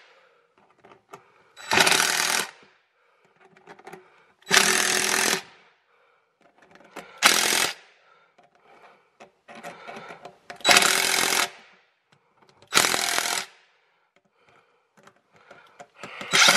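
Cordless impact driver hammering in short bursts, five of them under a second each and a few seconds apart, driving screw-in studs partway through a rubber tire tread.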